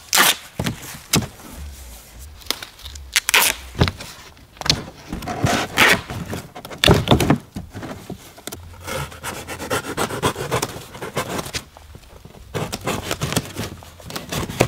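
Duct tape being ripped off the roll and pressed onto cardboard boxes, in repeated short rips and scrapes, along with cardboard being handled and shifted.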